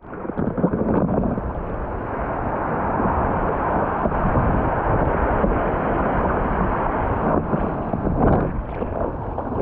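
Wind buffeting the microphone over choppy sea, with the steady rush of water around a board riding the swell. There are a couple of louder surges near the end.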